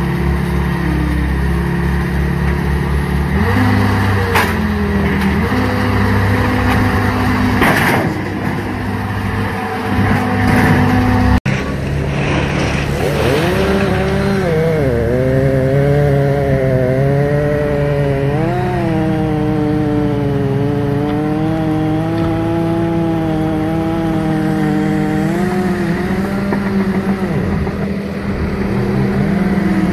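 Ditch Witch SK3000 stand-on track loader running under load as it handles a large log, its engine holding a steady hum, with a couple of sharp knocks in the first third. Later a whine rises and falls in pitch over a dozen seconds as the machine works.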